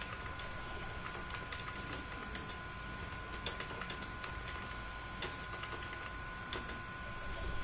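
Computer keyboard keys clicking irregularly as a short text message is typed, over a faint steady high hum.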